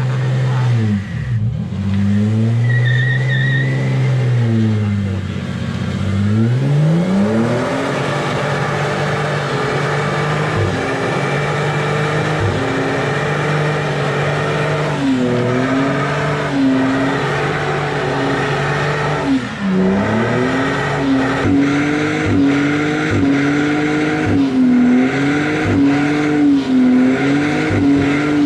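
A car engine revving hard in a skid: several sharp rev swoops up and down, then held at high revs with the pitch wavering, over tyre squeal.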